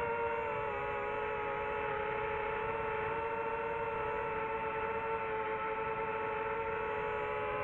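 DJI FPV drone's motors and propellers whining steadily in flight, the pitch drifting slightly. Near the end the tones split apart, one rising and one falling, as the motor speeds change.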